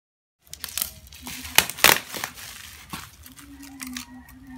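Plastic wrap and bubble wrap crinkling and tearing as it is cut off a cardboard box with a knife, with two sharp snaps about two seconds in.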